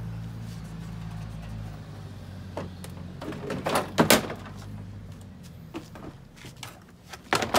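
Plastic front bumper cover being pulled free and handled, giving knocks and clatters of plastic against the car's body. The loudest clatter comes about four seconds in and another near the end, over a steady low hum that fades away about halfway through.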